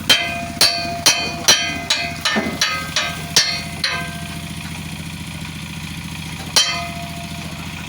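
About nine hammer blows on metal, roughly two a second, each ringing briefly, then a pause and one more blow near the end, over a steady engine hum.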